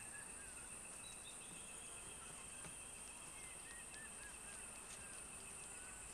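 Faint savanna ambience: a steady, high-pitched insect drone with short bird chirps scattered throughout.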